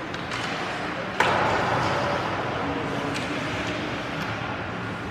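Ice hockey rink noise with crowd voices and skating, broken about a second in by one sharp crack from the puck, which rings briefly in the arena, and a few fainter clicks later.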